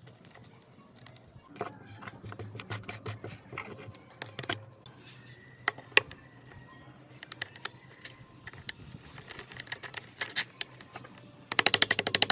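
Scattered light clicks and taps of small metal parts being handled over a steady low hum, then near the end a loud, fast clatter of rapid clicks for about two seconds.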